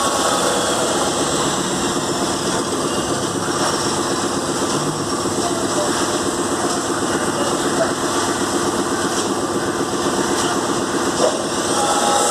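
Engine of a piling machine running steadily, with one sharp click about eleven seconds in.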